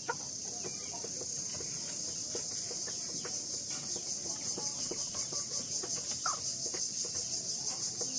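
High-pitched insect chirring that pulses about four times a second and grows louder, with a few short, soft clucks from Fayoumi chickens, one about six seconds in.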